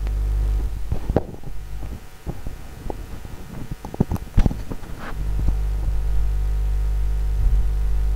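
Pot of water at a rolling boil on a gas stove, bubbling with scattered irregular pops, over a steady low hum that drops away for a few seconds in the middle.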